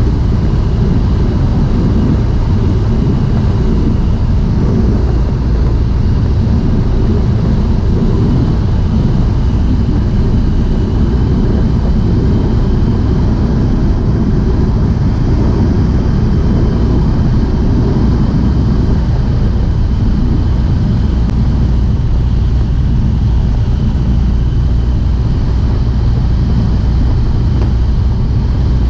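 Small high-wing airplane's engine and propeller droning steadily, heard from inside the cabin with rushing wind.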